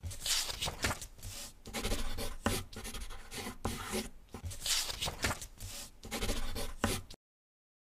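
Pen writing by hand: groups of quick scratchy strokes with short pauses between them, cutting off abruptly near the end.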